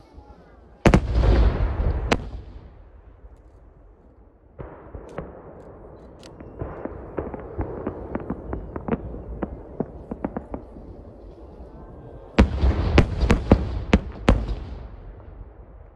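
Aerial firework shells bursting in a finale. A loud blast about a second in is followed by a rumble, then a long run of rapid pops and crackles, then a volley of heavy blasts near the end.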